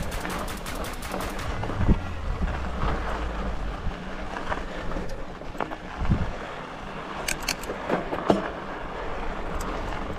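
Mountain bike rolling over a rocky dirt trail, with wind rumbling on the helmet camera's microphone. The rear hub ticks rapidly while coasting for the first second and a half, and the bike knocks over rocks a few times.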